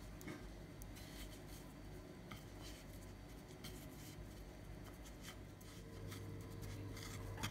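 Faint scratching and light ticks of wooden chopsticks turning and pressing a raw chicken wing in a plate of potato starch, over a steady low hum.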